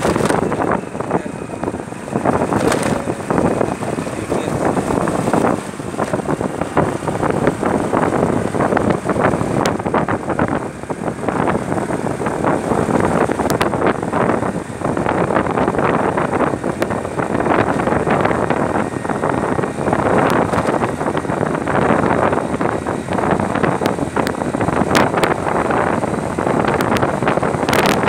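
Wind rushing over the microphone of a moving two-wheeler, with its engine running underneath in a loud, steady rush.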